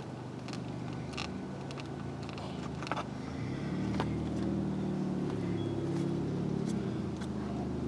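Steady low hum of a vehicle engine that grows louder about three seconds in and holds, with a few light clicks and taps of metal against the trailer siding.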